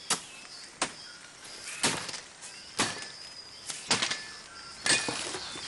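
Machete chopping into a tree trunk with sharp strikes about once a second. A faint high chirping runs in the background.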